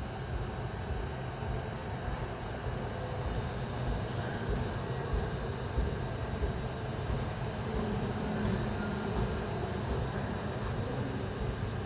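A train rolling slowly along a platform track, a steady low rumble of wheels on rail with faint thin high tones above it.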